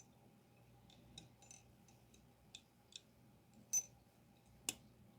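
Faint, irregular small metal clicks and taps from a Snap-on 3/8-inch drive ratchet's head and parts being worked by hand during reassembly. The two sharpest clicks come near the end.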